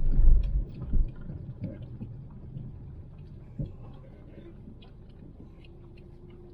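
Vehicle on a rough, potholed road: a low rumble drops away about half a second in, then faint scattered knocks and rattles with a sharper knock near the middle.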